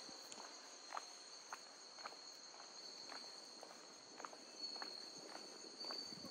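Footsteps walking at an even pace, about two steps a second, over a steady high-pitched chirring of insects.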